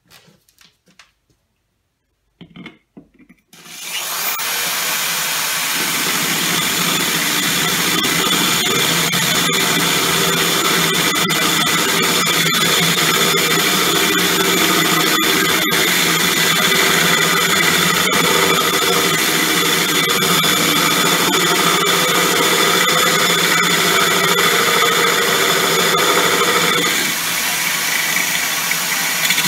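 Electric drill with a tubular cutting bit grinding a hole through 10 mm aquarium glass, in the last couple of millimetres before breaking through. It starts about three and a half seconds in after a few light knocks and runs steadily, dropping a little and changing in tone near the end.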